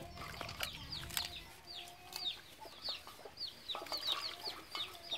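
Chickens clucking, with many short high falling chirps repeating throughout, along with a few splashes of water as herbs are rinsed by hand in a steel bowl.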